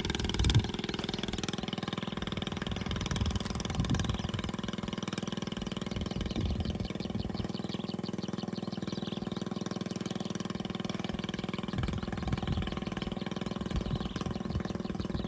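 A small engine running steadily at an even speed, with a few brief knocks or thumps.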